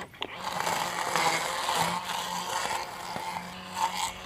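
Cordless battery-powered string trimmer with a plastic blade head running and cutting through weeds: a steady electric motor hum with the swish of stems against the head.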